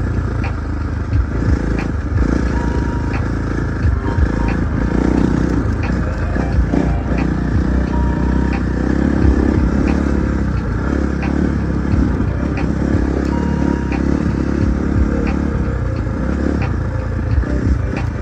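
Husqvarna 450 dirt bike's single-cylinder four-stroke engine running steadily while the bike is ridden, with an uneven low rumble underneath.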